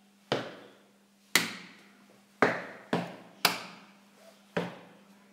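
Hand-and-shoe body percussion: six sharp knocks in a loose beat, about one a second with a quicker pair in the middle, each trailing off in a short ring, over a faint steady hum.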